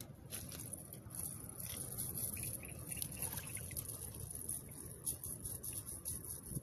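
A wet nylon cast net rustling and dripping as it is handled and gathered up, with many small irregular ticks over a steady low rumble.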